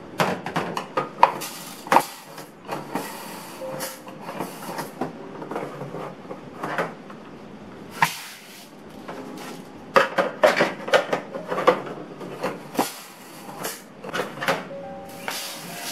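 Household items being handled in a kitchen: irregular clicks and knocks of containers, dishes and lids being picked up and set down, with a door or lid opening and closing. The knocks come thickest at the start and again about two-thirds of the way through, with a quieter stretch between.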